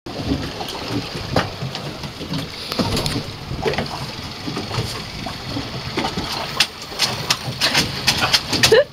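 Water and wind noise aboard a small boat at sea, with scattered clicks and knocks that crowd together near the end, where a short rising sound also comes.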